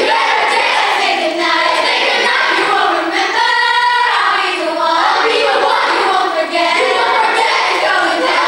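A group of children and teenagers singing together on stage, with a long held note about three and a half seconds in.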